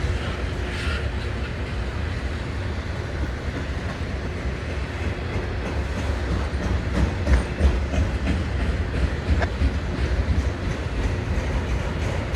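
Freight train of loaded autorack cars rolling past, a steady low rumble with the wheels clicking over rail joints, the clicks more frequent and a little louder in the second half.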